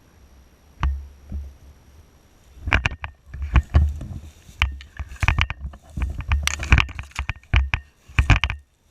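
A run of irregular sharp clicks and knocks over low thumping rumbles, thickest from about three seconds in until near the end, then briefly quiet.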